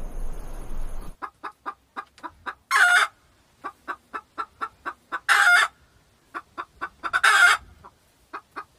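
Hens clucking: a quick run of short clucks, several a second, broken three times by a louder, drawn-out squawking call.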